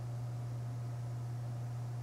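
Quiet room tone: a steady low hum with faint hiss, unchanging, and no other event.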